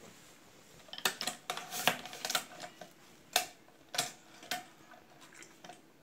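Hand-operated metal cigarette-tube filling machine clacking as it is worked: a quick run of sharp metallic clicks about a second in, then three more spaced clacks.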